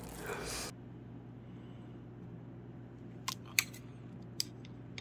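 A wet eating sound from handling and biting into marinated crab cuts off within the first second. After that only a steady low hum remains, with a few light clicks about three seconds in and again near four and a half seconds.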